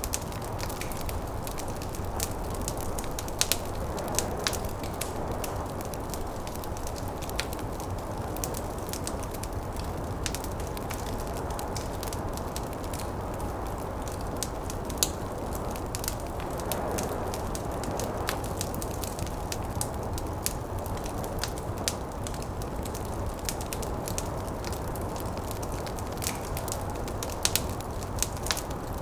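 Wood fire crackling, with frequent irregular sharp pops and snaps over a steady rushing noise of snowstorm wind.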